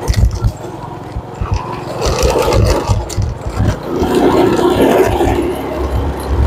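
Riding a small motorbike on a rough concrete lane: wind buffets the microphone in uneven low thumps over the engine's running. A second small motorbike passes close by about four seconds in, the sound swelling as it goes by.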